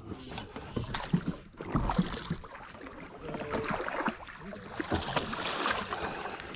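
Water splashing and sloshing as a hooked catfish thrashes at the surface beside a boat and is netted, with scattered knocks and rattles from the landing net and boat.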